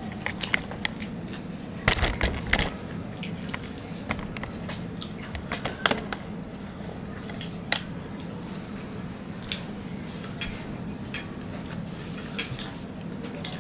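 Eating sounds: a person eating rice and fried chicken by hand, with chewing, wet squishes and scattered small clicks and clinks of fingers and food on the plate, over a steady low hum.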